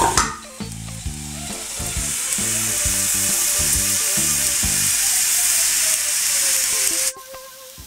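Liquid nitrogen ladled onto cream in a metal plate, hissing and sizzling as it boils off on contact. The hiss cuts off abruptly about seven seconds in.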